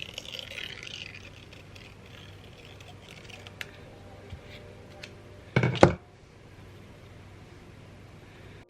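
Small objects handled on a tabletop: a light rustle at first and a few faint clicks, then a brief loud double knock about five and a half seconds in.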